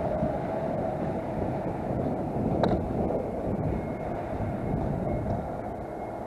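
Mercedes-Benz Actros 480 truck running, a steady engine rumble, with a single sharp click about two and a half seconds in.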